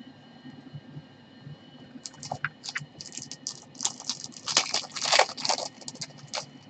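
Crinkling and rustling of trading-card packaging being handled. It starts about two seconds in as a run of short, irregular crackles and is busiest near the fifth second.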